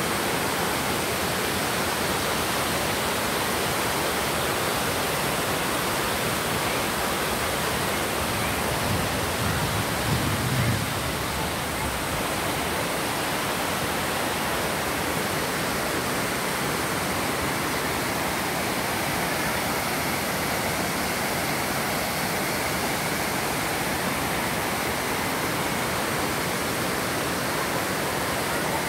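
Shallow river rushing over rocks and rapids: a steady, even hiss of running water, with a brief low rumble about ten seconds in.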